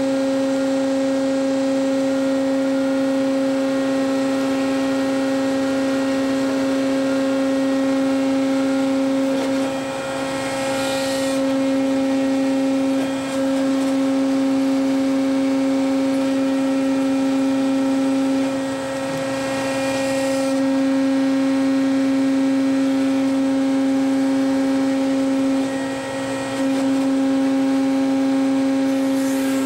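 Electric battery changer's motor running with a steady hum, dipping briefly a few times, as it rolls a forklift battery into the truck's battery compartment.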